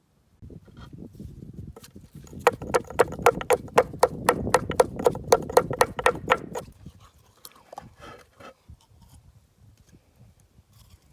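Rapid knife chopping on a cutting board: about twenty quick, even strokes, some five a second, for about four seconds, with softer handling sounds before and after.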